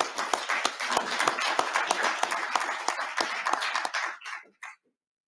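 Audience applauding with many hands clapping. The clapping dies away about four seconds in, with a few last claps.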